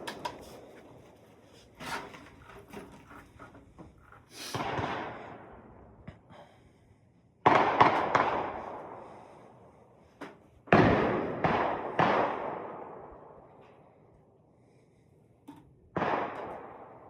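Gunshots fired one at a time at irregular intervals, about eight in all. Each is a sharp crack trailing off in a long echo, with two quick pairs near the middle that are the loudest.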